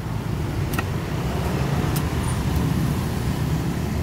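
Two sharp strikes of a machete chopping into a young green coconut, about a second apart, over the steady low rumble of road traffic close by.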